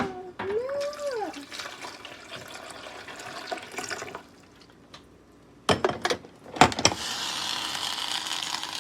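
Water running and pouring, with a few sharp clicks a little past the middle, then a steady hiss in the last couple of seconds; water leaks out of the holes in the bottom of the appliance.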